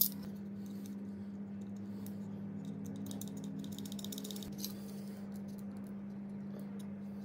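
Faint small clicks and rattles of a blower fan and its print-head cover being handled while its screws are set in place, over a steady low hum.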